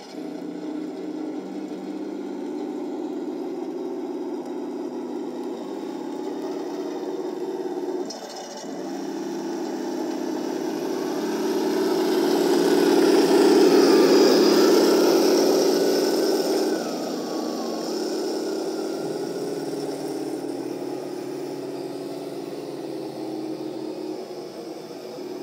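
1/16-scale RC T-34-85 tank running, its drive motors and gearboxes whirring under a steady engine sound from its sound unit. The sound swells to its loudest about halfway through, then drops suddenly a few seconds later.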